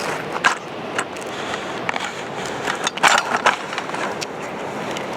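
Scraping and crunching in dirt and gravel, in a few short bursts, most around three seconds in, from a plastic toy backhoe digging. A steady rushing hiss lies under it throughout.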